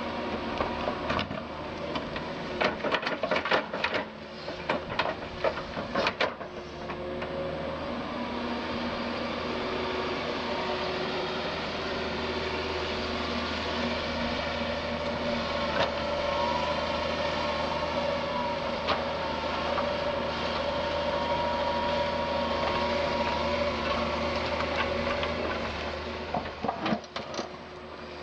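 Doosan DX180 LC crawler excavator working: its diesel engine drones steadily under a hydraulic whine that rises about ten seconds in and holds for some fifteen seconds. Bursts of clanks and knocks come in the first six seconds and again near the end.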